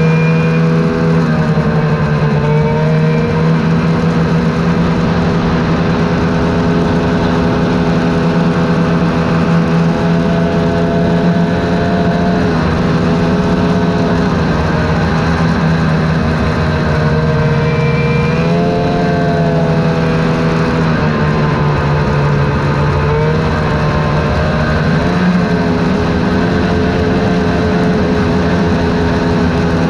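Snowmobile engine running at trail speed, holding a steady pitch that dips briefly in the middle and rises twice in the second half as the throttle changes, over a constant rushing noise.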